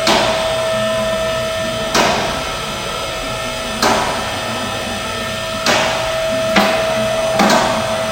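Hammer blows on metal: six sharp strikes about two seconds apart, the last ones coming closer together, each with a short ring, over a steady hum.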